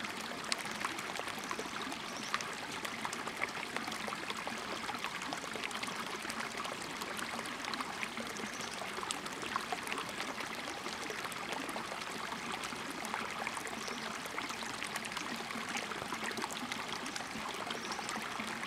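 Shallow rocky stream running over stones and pebbles: a steady babble of water with frequent small plinks and drips.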